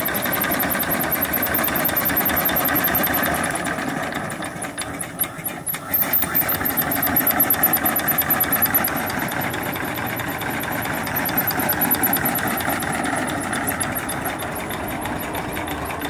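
Small single-cylinder steam engine (2.75-inch bore, 4-inch stroke) running on steam from a vertical fire-tube boiler, its exhaust going up the stack in rapid, even chuffs. The running briefly gets quieter about four to six seconds in, then picks up again.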